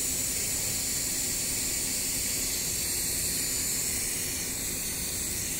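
Steady, even hiss of rushing air around an automatic LCD panel bonding machine, mostly high-pitched, with no change in level.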